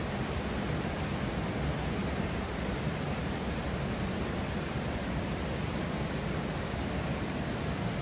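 Water dripping and trickling off a seeping rock wall: a steady, even hiss of falling water that does not let up.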